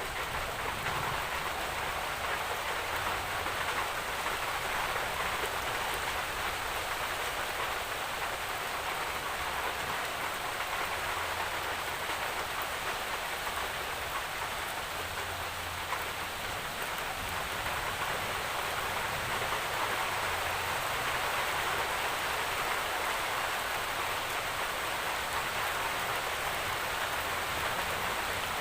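Steady rainfall: an even, continuous hiss of drops falling on surfaces, with a faint low rumble underneath at times.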